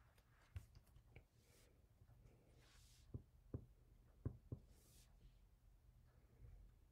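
Near silence, broken by a handful of faint light taps and a couple of soft swishes as a handheld paper-crafting tool touches down on a glue mat and on card stock.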